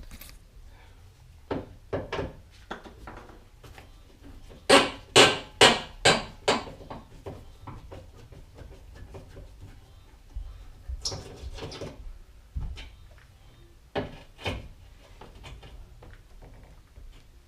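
Sharp clicks and knocks of a car grille's plastic screw clips being twisted out with a flathead screwdriver and the grille worked loose, with a quick run of about five loud knocks around five seconds in.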